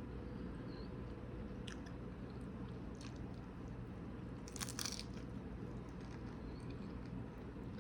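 A person chewing a taco close to the microphone, with a louder crunching bite about two-thirds of the way through, over a steady low room hum.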